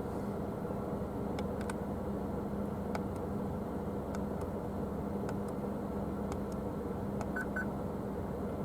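Steady low hum of an idling car heard from inside the cabin, with a constant low tone and a few faint clicks.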